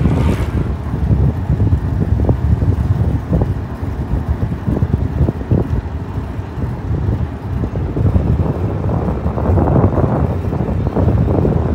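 Wind buffeting the microphone of a bicycle-mounted camera while riding, a low rumble that rises and falls in gusts. A brief hiss comes near the start.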